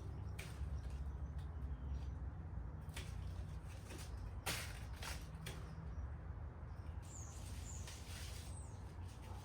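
Backyard ambience: a handful of sharp clicks over a steady low rumble, the strongest about halfway through, with birds chirping in the last couple of seconds.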